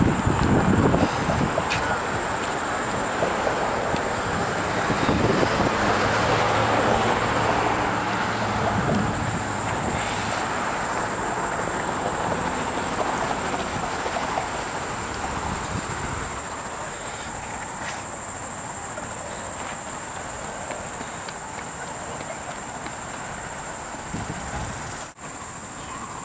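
Mexican free-tailed bat colony chattering in its roost under a highway bridge: a steady high-pitched chatter of many calls, which signals the bats are getting ready to fly out. A duller rush runs underneath, heavier in the first nine seconds or so.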